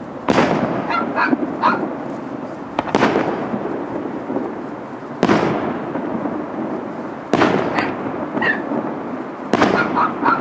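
Aerial firework shells bursting: five loud bangs about two seconds apart, each followed by a rumbling echo, with fainter short pops between them.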